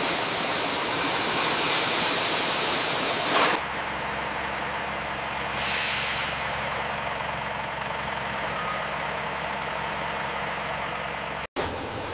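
Heavy trucks' steady engine noise with hissing air brakes: one hiss cuts off about three and a half seconds in, and another short hiss comes about six seconds in.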